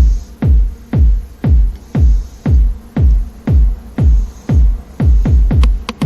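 Background electronic music with a steady deep kick drum, about two beats a second.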